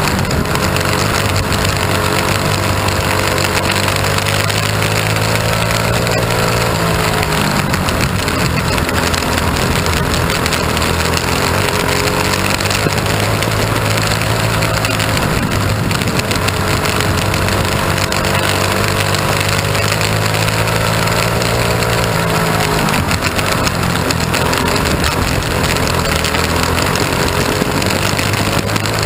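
Mini wedge race car's small engine running hard at racing speed on a dirt oval, heard from the cockpit. Its note drops and climbs again several times, about every seven or eight seconds, over a steady rushing noise.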